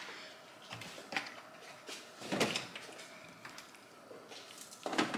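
Refrigerator door and groceries being handled while food is put away: a few scattered knocks and rustles, the loudest about two and a half seconds in.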